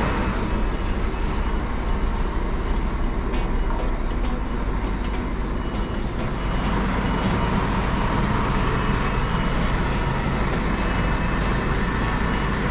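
Scania G410 truck's diesel engine running steadily.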